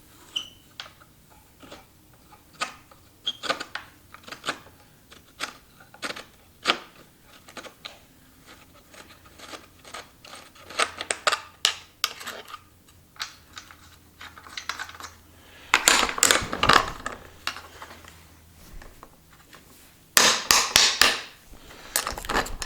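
Scattered clicks and light metallic clatter of hand tools and small parts as a dirt bike's throttle assembly is loosened and taken off the handlebar, with two louder stretches of rubbing and rattling, one about two-thirds of the way in and one near the end.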